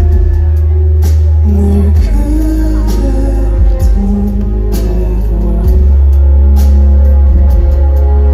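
Live pop ballad: a male vocalist singing over an accompaniment with a heavy, booming bass and a regular beat, recorded loud from the audience. The bass eases off about two seconds in and swells back near six seconds.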